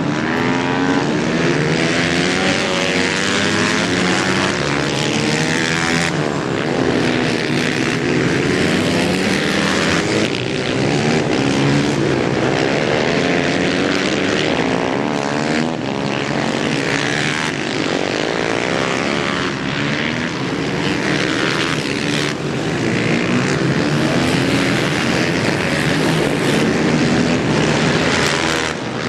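Supermoto racing motorcycles' engines revving hard as they pass, pitch climbing and dropping repeatedly through gear changes, sometimes several bikes at once. The sound changes abruptly a few times.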